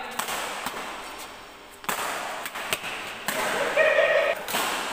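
Badminton rackets hitting a shuttlecock in a rally, several sharp cracks at uneven intervals. A short shout about four seconds in is the loudest sound.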